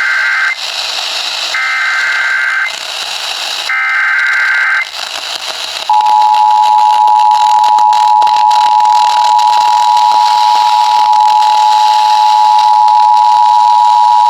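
Emergency Alert System SAME header: three short bursts of screechy digital data, then about six seconds in the steady two-tone attention signal (853 and 960 Hz) of a NOAA Weather Radio warning begins. A steady radio hiss lies under both.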